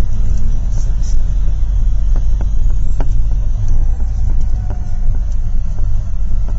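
Inside a moving school bus: a steady low rumble of engine and road noise, with a few brief sharp clicks or rattles.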